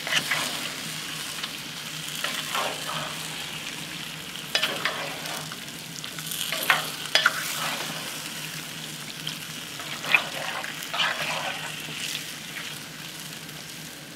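Pork, onions and red pepper sizzling in a hot cast-iron Dutch oven while a wooden spoon stirs them, scraping against the pot every couple of seconds.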